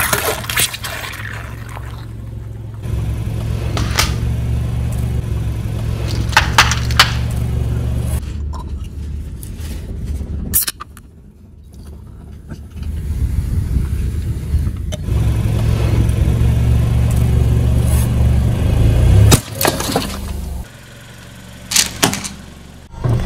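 A car's engine running low as it rolls slowly, its tyre crushing brittle objects with several sharp cracks and crunches spread through. The engine hum drops away twice.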